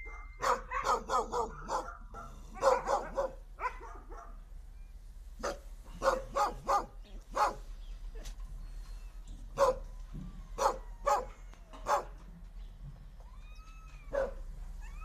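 Kennelled shelter dogs barking in short bursts, on and off, with pauses between.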